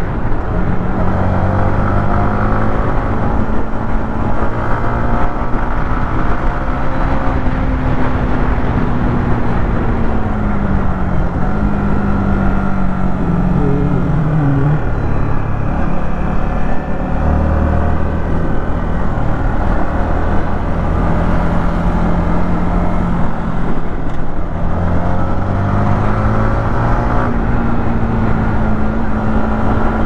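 Yamaha MT-15's 155 cc single-cylinder engine running through its stock exhaust while riding. The engine note falls around the middle as the bike slows and drops from fifth to third gear, then climbs again near the end as it speeds back up.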